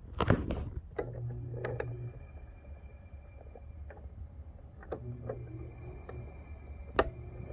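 Frigidaire window air conditioner running with a low steady hum and a faint high whine, the hum swelling twice. Scattered clicks and knocks over it, with a sharp click about seven seconds in.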